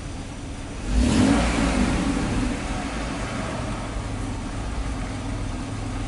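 2008 Chevy Equinox engine running at about idle, heard from inside the cabin. About a second in the sound swells suddenly, louder and hissier, then eases back over the next couple of seconds.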